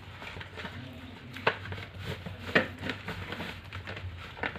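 Homemade slime being gathered out of a bowl and worked by hand: soft sticky crackling, with two sharp clicks about a second apart near the middle.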